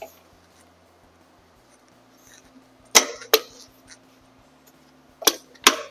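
Front axle being tapped through the wheel hub and fork legs with a tool: sharp metallic taps, a pair about three seconds in and two more near the end, each with a short ring.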